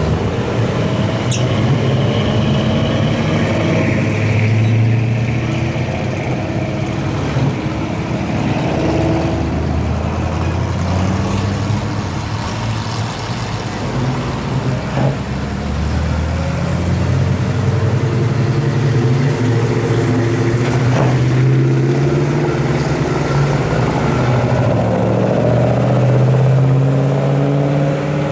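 A line of classic cars and trucks driving slowly past, their engines running steadily in a low drone that swells and fades as each one goes by.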